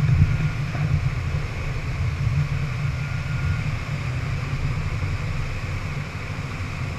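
Engine of a watercraft towing a tube at speed: a steady low rumble with the rush of wind and spray on the microphone.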